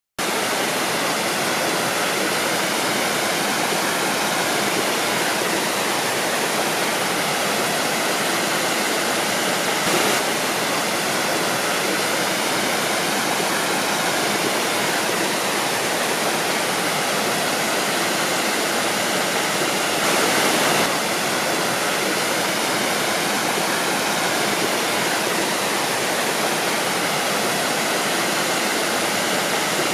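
Waterfall: a steady rush of falling water, continuous and even, with slight surges about ten seconds in and again about twenty seconds in.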